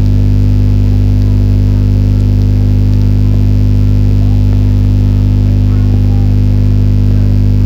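Loud, steady electrical mains hum: a low buzz with a stack of overtones that never varies, drowning out everything else on the recording.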